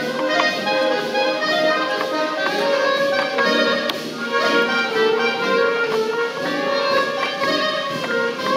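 Student concert band playing, woodwinds and brass holding chords together, with a few light percussive ticks.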